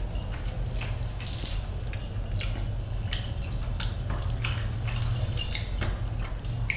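Close-up eating by hand: small wet squelches and rustles of fingers working sauce into biryani rice and chicken, with chewing, and the light jangle and clink of metal rings and bracelets on the moving hand. A low steady hum runs underneath.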